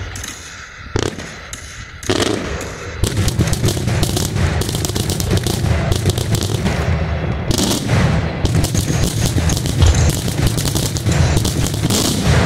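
Daytime fireworks shells bursting: a sharp bang, another about a second later, then from about two seconds in a dense, continuous barrage of rapid bangs.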